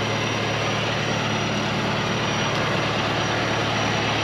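Steady drone of an engine running, with a constant low hum that does not change in pitch or level.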